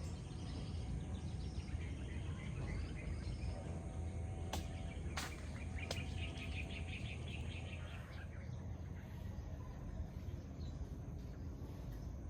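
Outdoor rural ambience: birds chirping over a steady high buzz of insects and a low rumble, with two sharp clicks near the middle.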